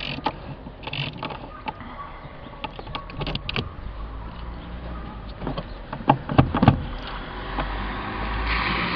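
Hand tools clicking and knocking against metal in a car's engine bay as the battery hold-down is worked loose, with a few louder knocks about six seconds in. A low rumble builds in the background toward the end.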